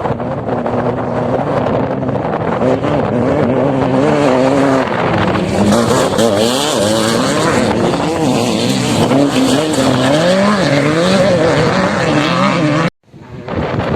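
A vehicle's engine running with the revs rising and falling again and again under changing throttle, over a rumble of road and wind noise. The sound cuts out abruptly about a second before the end, then comes back.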